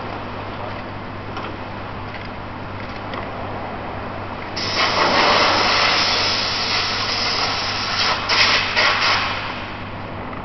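Steady hum of a railway wheel lathe and shop machinery. About four and a half seconds in, a loud hiss starts suddenly and runs for about five seconds, with a few sharp clanks near its end.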